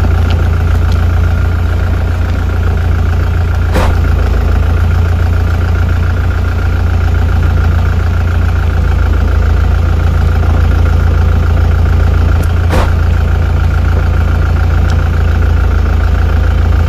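An engine idling steadily with a deep, loud hum, with two sharp clicks, about four and about thirteen seconds in.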